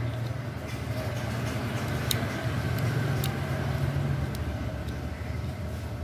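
A steady low engine-like rumble, swelling slightly about three seconds in, with a few faint metal clicks from an Allen key being turned in a bicycle disc brake caliper bolt.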